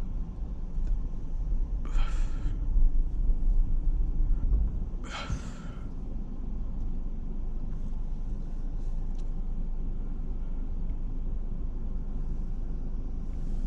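Steady low rumble of a car driving, heard from inside the cabin. Two short hissing swishes come about 2 and 5 seconds in.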